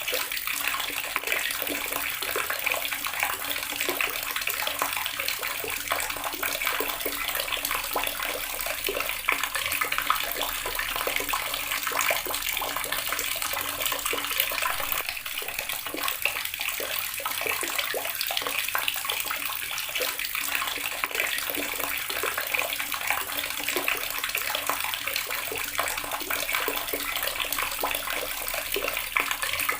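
Water tap running steadily, the stream splashing into the water below with a constant hiss and fine splatter.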